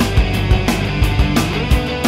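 Rock music with electric guitar and a steady, driving drum beat.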